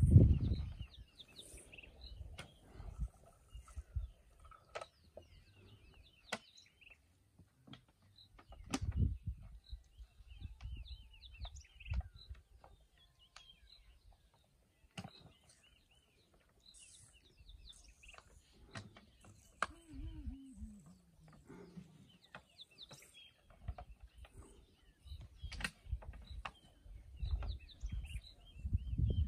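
Small birds chirping repeatedly in the bush, with scattered sharp clicks and soft low thumps. About two-thirds of the way through there is one short falling low tone.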